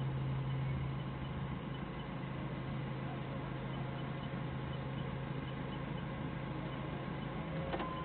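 Doosan 4.5-ton forklift's engine running steadily, a constant low hum with a faint click near the end.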